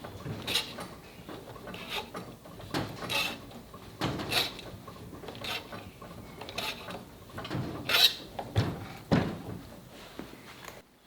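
Irregular knocks and clunks, roughly one or two a second, with clatter between them: handling and tool sounds.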